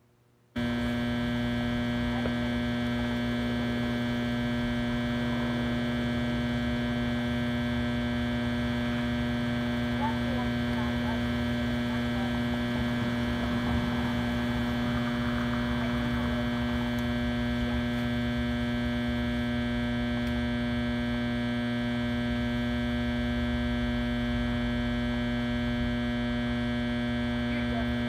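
Loud, steady electrical hum made of many fixed buzzing tones, starting about half a second in after a brief drop-out and drowning out other outdoor sound. The uploader blames the spoiled audio on a broken generator that was being fixed.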